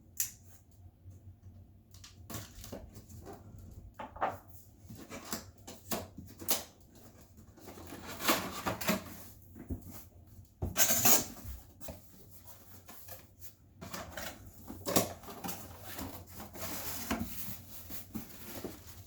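A large cardboard box being opened and its packaging handled: cardboard rubbing and scraping, scattered knocks and clicks, and several short rustling bursts.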